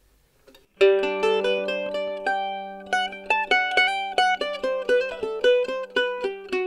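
Mandolin picked and heard through its K&K Mandolin Twin piezo transducers alone: a strong plucked chord just under a second in, then a quick melody of single notes over a low drone that keeps ringing.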